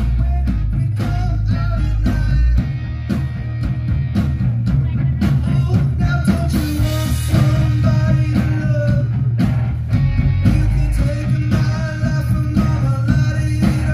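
Live rock band playing: distorted electric guitars over drums and bass, with a sung lead vocal.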